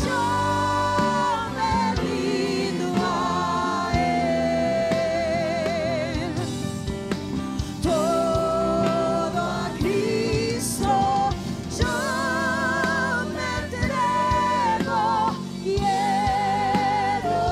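Gospel worship music: a singing voice holds long notes with vibrato over steady sustained chords.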